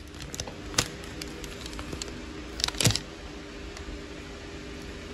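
A few sharp clicks and knocks of things being handled, the loudest two close together about three seconds in, over a steady low hum.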